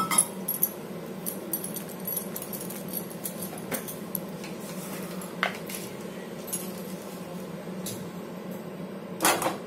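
Kitchen background: a steady low hum with faint, scattered clicks and light clinks of utensils, and one short louder clatter near the end.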